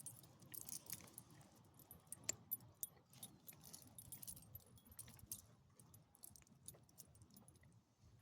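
Faint, light metallic jingling and clicking of small metal pieces, scattered ticks that grow sparser and quieter toward the end.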